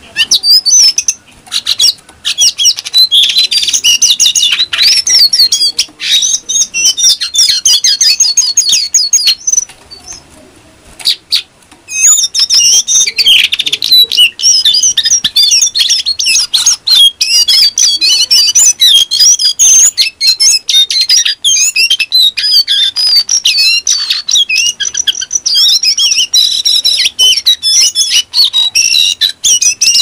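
Lesser shortwing singing a fast, high-pitched twittering song in long rapid runs, the 'nembak' (rapid-fire) song that bird-keepers prize; the song breaks off for about two seconds around ten seconds in, then resumes.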